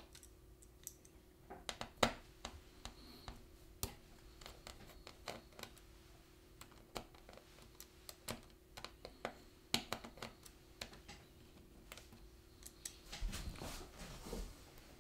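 Scattered small clicks and scrapes of a screwdriver turning out the battery screws in an open laptop and handling the parts, over a faint steady hum.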